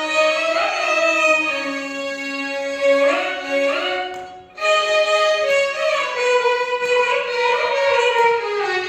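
Violins playing a Carnatic melody, held notes joined by sliding ornaments, breaking off briefly about halfway through before carrying on.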